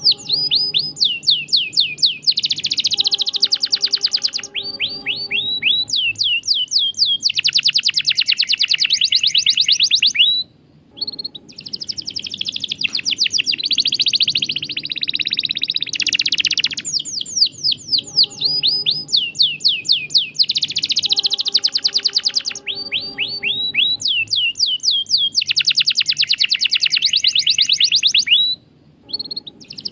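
Domestic canary singing continuously in rapid trills and rolls of fast repeated high notes, with two brief pauses, about ten seconds in and near the end.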